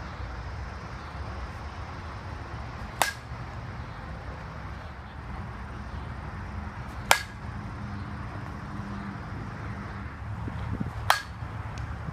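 Softball bat hitting pitched balls three times, about four seconds apart: sharp cracks, each with a short ring, over a steady low outdoor rumble.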